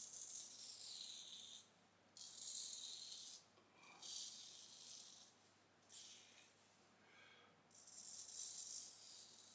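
Parker Variant adjustable double-edge safety razor with a Gillette Wilkinson Sword blade shaving through lathered stubble in about five strokes, each a scratchy rasp. The blade feedback is smooth and even rather than loud.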